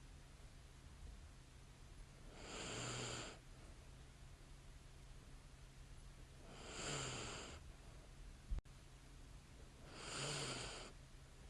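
A sleeping woman's light snoring: three slow, soft breaths, each about a second long and about four seconds apart. There is a single sharp click about two-thirds of the way through.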